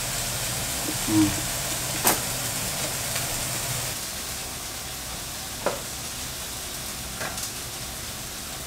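Steady sizzle of food frying in a pan, with a few light clicks of a rice paddle against a rice cooker's inner pot as brown rice is scooped out.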